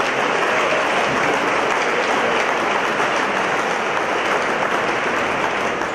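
A crowd applauding, a steady sustained clapping that dies down at the end.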